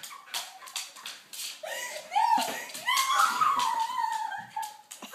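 Cattle dog whining in one long, high, wavering cry lasting about three seconds. It comes over scattered quick clicks and scuffles of play.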